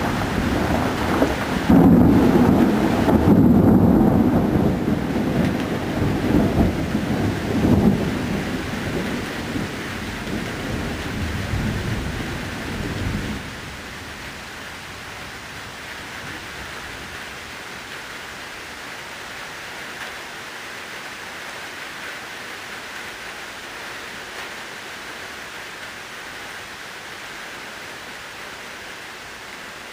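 Thunder rumbling loudly over steady rain, the rumble strongest in the first few seconds and rolling on unevenly. About halfway through the thunder cuts off abruptly, leaving only a steady hiss of rain.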